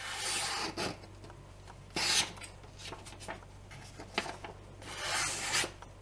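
Thin paper being sliced by a Victorinox Santoku kitchen knife, three short papery hisses as the blade passes through the sheet, about two seconds apart.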